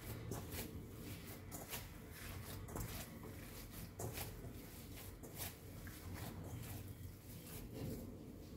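Hands kneading wheat-flour dough mixed with chopped dill in a metal bowl: a quick, irregular run of short, soft sounds.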